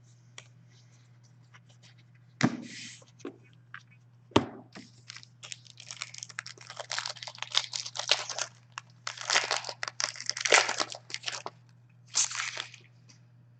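Two light knocks, then a hockey card pack's wrapper being torn open and crinkled for several seconds, over a low steady hum.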